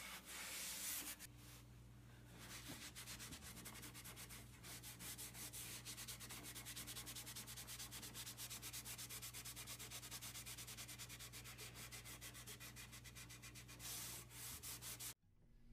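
Cloth rag rubbing tung oil into bare sanded wood, faint quick back-and-forth strokes. The rubbing pauses briefly about a second in and stops just before the end.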